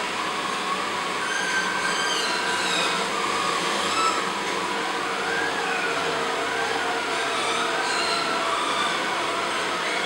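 Ameribot 720 robot vacuum cleaner running as it drives across a hard floor: a steady whir of its suction fan and brushes, with a thin whine that wavers in pitch.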